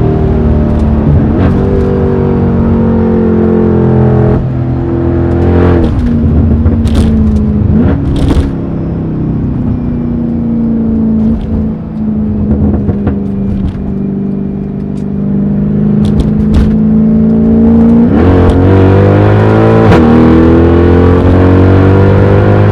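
Mercedes-AMG E63's V8 with a loud exhaust, pulling through the gears: the engine note climbs and drops back at each shift several times, with steadier cruising in the middle. A few sharp cracks are heard about seven to eight seconds in and again around sixteen seconds.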